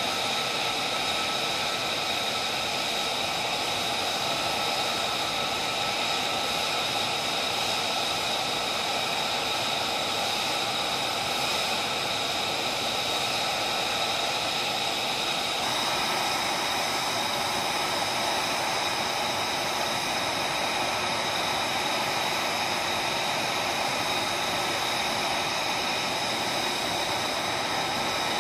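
F-35B's Pratt & Whitney F135 turbofan idling on the ground: a steady jet rush with several high whining tones, the mix shifting slightly about halfway through.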